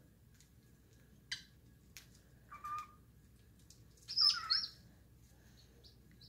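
Cockatiel giving a few short, sparse whistled chirps, the loudest a brief warbling whistle with quick pitch slides about four seconds in.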